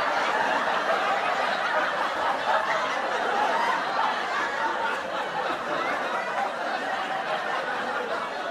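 Many voices laughing and chattering at once, a steady jumble of laughter with no single speaker standing out.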